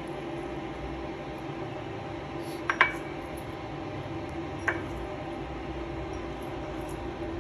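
Light clinks against a ceramic plate, a quick double clink just under three seconds in and a single one near five seconds, each with a short ring, over a steady low hum in the room.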